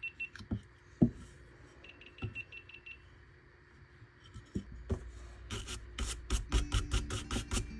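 A few light knocks as a basswood carving block is handled, then, near the end, a small bristle brush scrubbed quickly back and forth over the carved wood, about five scratchy strokes a second, clearing away chips and fuzz.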